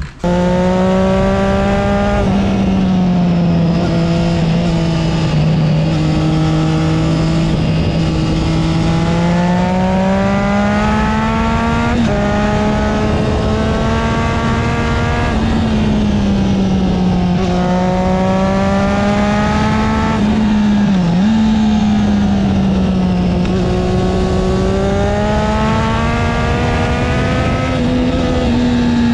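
Triumph Street Triple 675R's three-cylinder engine through an altered exhaust, pulling under acceleration. The note climbs in pitch and drops sharply several times as the gears change.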